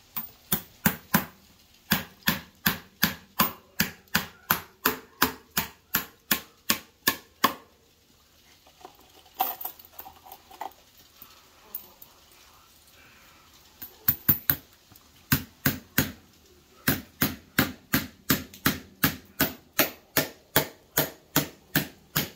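Claw hammer tapping steel sleeve anchors down through a wooden sill plate into holes drilled in a concrete slab: steady metallic strikes about two or three a second, a pause of several seconds in the middle, then another run of strikes.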